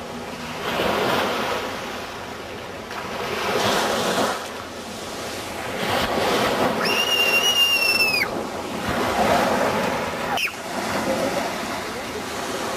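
Small waves washing up the beach and drawing back, the surf swelling and fading every two to three seconds. A brief high-pitched squeal comes about seven seconds in.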